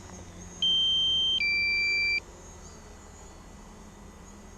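Drone controller's low-battery warning alarm beeping: a two-part electronic chime, one steady tone followed by a higher-and-lower tone pair, each about a second long, repeating every few seconds. The drone's battery is running low.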